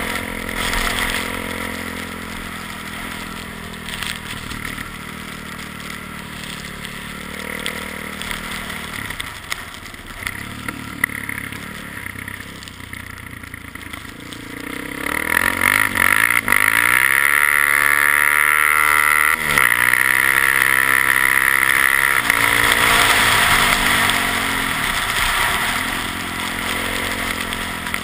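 ATV engine running at low, uneven revs, then revving hard about halfway through, held high for several seconds, and easing back down near the end.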